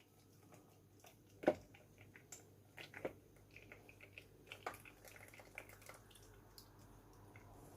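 Blended raisin juice dripping and trickling through a kitchen strainer, faint, with scattered small taps and one sharper knock about a second and a half in.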